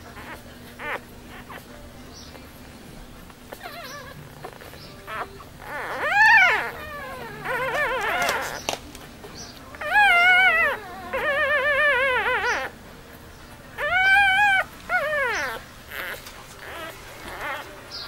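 Newborn French bulldog puppies whining and squealing: a few faint squeaks at first, then from about six seconds in several runs of loud, high cries that rise and fall in pitch.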